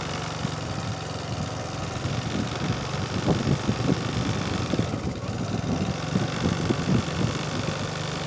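Vehicle engine running steadily at low speed, a constant low hum, with uneven rumbling noise over it.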